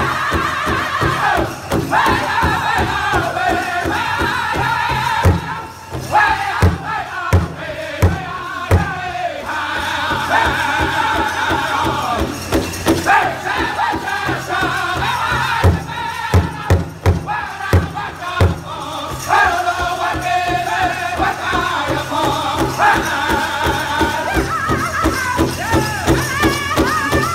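Powwow drum group singing a grass dance trick song together around a large shared hand drum, beaten with sticks in a steady beat. Twice in the middle, a run of loud, separate drum strikes stands out above the singing.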